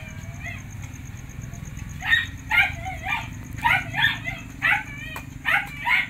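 A dog barking repeatedly, about two barks a second, starting about two seconds in, over a steady low rumble.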